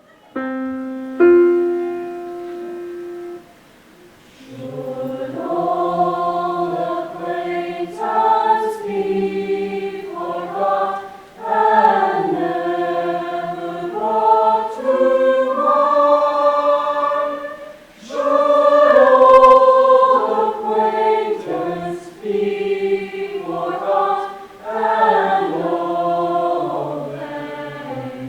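A high school choir singing in several parts, entering about four seconds in after two short held opening notes.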